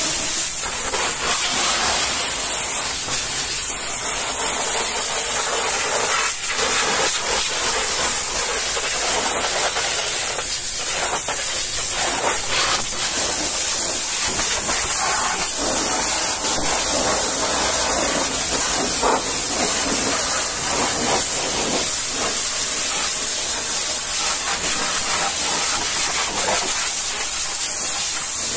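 High-pressure washer jet spraying a truck's tyre and the underside of its trailer chassis: a steady loud hiss, with water spattering off rubber and steel that shifts as the jet moves across the surfaces.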